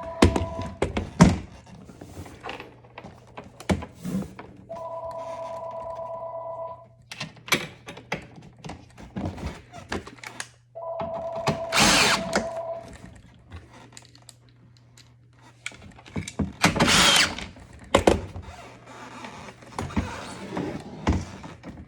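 An electronic two-tone ring sounds three times, about two seconds each with pauses of about four seconds, over scattered clicks, knocks and clatter from work on a dishwasher's control panel. Two louder noisy bursts, each about a second long, come about halfway through and again a few seconds later.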